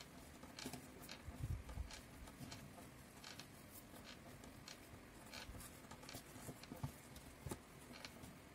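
Faint, scattered taps and scrapes with a few soft thuds: hands kneading and pressing dough and a small cup knocking and scraping on a floured wooden tabletop.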